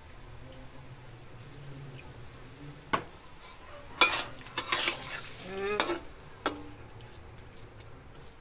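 Metal spatula stirring and scraping fish in a thick sauce in a metal wok, with several sharp clanks against the pan between about 3 and 6.5 seconds in, the loudest near 4 seconds, and a few brief scraping squeaks.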